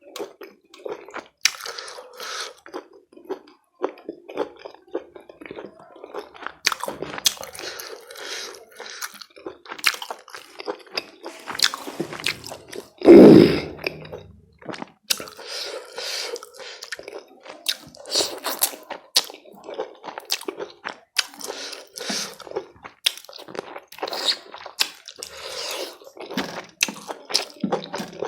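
Close-up chewing and wet mouth sounds of someone eating curry and rice, with squishing and crunchy bites as a run of short clicks. About halfway through comes one much louder, low sound lasting about a second.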